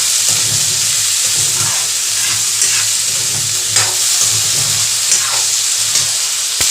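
Potatoes and peas frying in hot oil in a kadai: a steady sizzle, with the vegetables being stirred and scraped around the pan about once a second.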